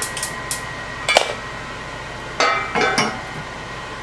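Metal pot and lid being handled: a few light knocks, a sharp clank about a second in, then a longer clatter with a brief metallic ring as the lid is set on the pot.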